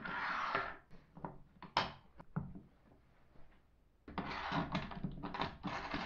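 A hold-down clamp being handled and set into the aluminium T-track of a plywood table saw sled fence: a short scrape, a few light clicks and knocks, then from about four seconds in a longer run of scraping and clacking as the clamp slides and seats in the track.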